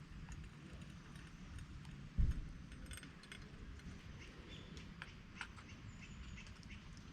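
Scattered light clicks and knocks, with one dull thump about two seconds in, over a low steady rumble.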